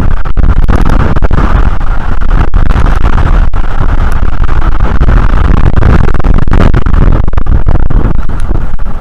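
Strong wind buffeting the nest-cam microphone: loud, constant wind noise, with brief dropouts throughout.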